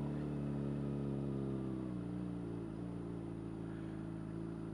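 Motorcycle engine running at a steady pitch while cruising in slowing freeway traffic, its note dropping slightly about two seconds in as the throttle eases.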